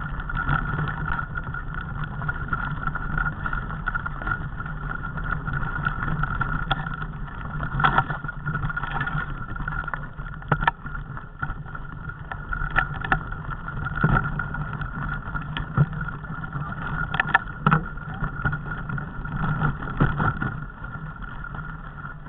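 Mountain bike riding over a rocky singletrack: a steady rumble and hiss of tyres and wind, broken by frequent sharp knocks and rattles as the bike jolts over stones.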